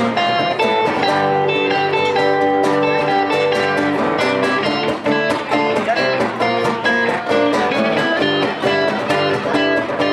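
Guitar playing a tune: a steady rhythm of plucked and strummed notes, with bass notes under a melody.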